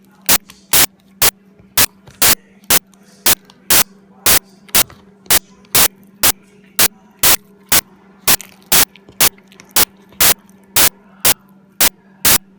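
Sharp clicks repeating evenly, about two a second, over a faint steady hum.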